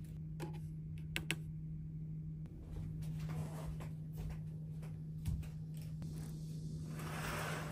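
Indoor room tone with a steady low hum, broken by a few sharp clicks and a knock, and a short swell of hiss-like noise near the end.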